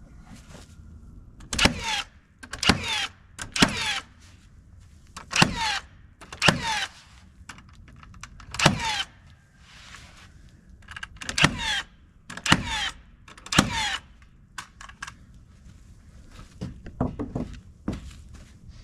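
Nails being driven into live-edge poplar siding slabs: sharp strikes, mostly in pairs or threes, about eighteen in all with pauses between.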